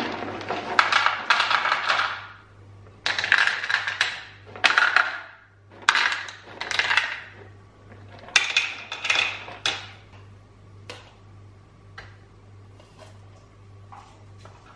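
Dry dog kibble poured from a plastic storage container into small plastic bowls, rattling in four pours over about the first ten seconds, followed by a few faint clicks.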